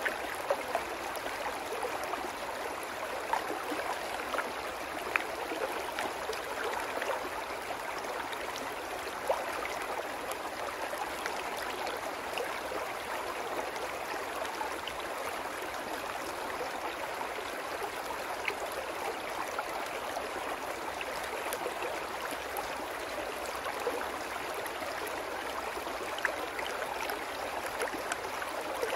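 Small brook babbling over rocks and a low cascade: a steady rush of water with a few brief splashes standing out.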